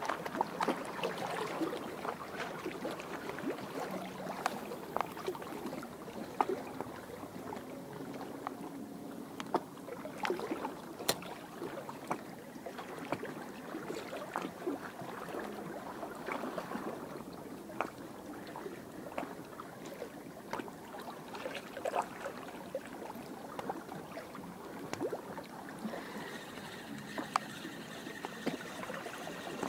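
Small waves lapping and splashing against the shore, with many short irregular splashes and clicks. A faint steady high tone joins near the end.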